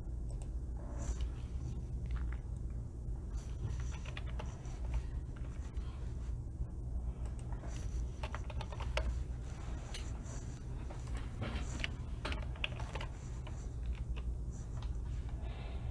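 Typing on a computer keyboard: short, irregular runs of key clicks over a steady low hum.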